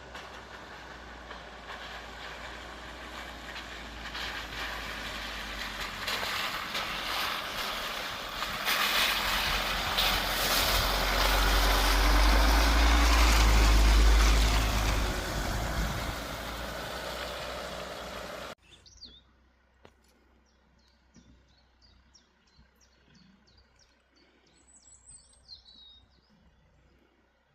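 Jeep Grand Cherokee WJ with the 2.7 diesel driving, its engine and rolling noise swelling to a loud peak with a heavy low rumble. About two-thirds of the way through it cuts off abruptly, leaving quiet with birds chirping.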